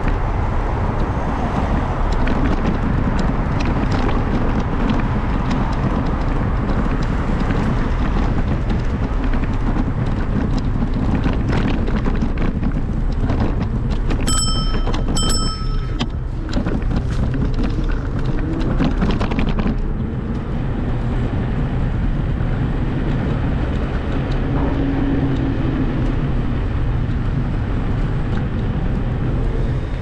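Street ambience with steady traffic noise and rumbling wind on the action-camera microphone. Two short electronic beeps about a second apart come midway.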